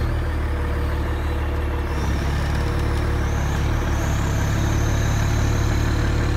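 Truck engine running steadily to power a truck-mounted knuckle-boom crane's hydraulics as the crane grabs and lifts a pallet of concrete blocks. A faint high hydraulic whine rises a couple of times over the low engine hum.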